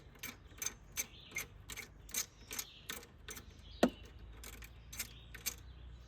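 Hand ratchet clicking in a steady rhythm, about two and a half clicks a second, as alternator mounting bolts are run down, with one short squeak about four seconds in.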